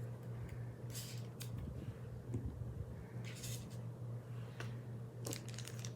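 A fan hums steadily, while small items and their packaging are handled in several short rustles and light clicks, about four or five times.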